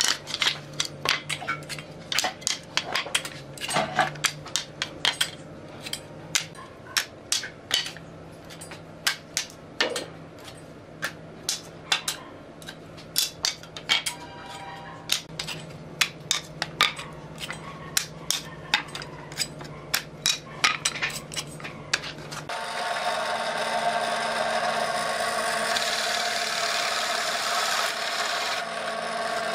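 Loose wooden slats knocking and clacking against each other and a tile floor as they are handled and laid out: many sharp wooden knocks. About 22 seconds in, a bench drill press starts running steadily, boring into a wooden board.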